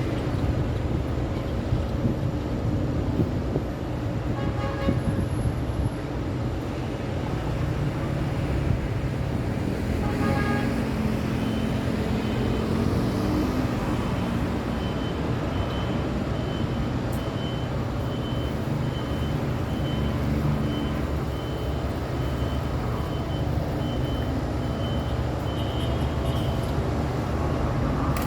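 Steady rumble of heavy road traffic, with truck and car engines passing. A vehicle horn toots briefly about five seconds in and again about ten seconds in, and a faint, high, repeating beep runs through the second half.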